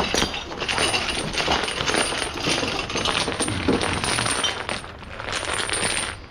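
Loose scrap metal pieces clattering and tumbling down together: a dense, continuous run of many small metallic clinks and rattles.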